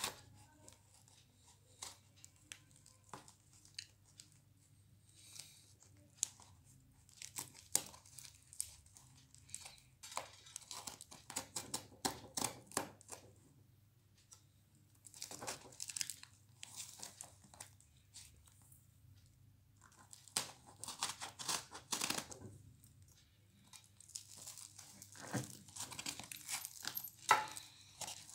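Brown wrapping paper and packing tape being torn off a cardboard parcel by hand: irregular spells of ripping and crinkling, with short quiet pauses between.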